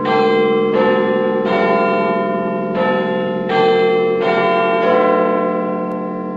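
Bells struck one after another, about seven strikes less than a second apart, each ringing on over the one before; the ringing fades away near the end.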